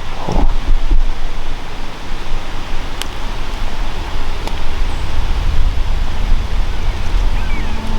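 Wind rumbling on the microphone outdoors, with a few faint clicks.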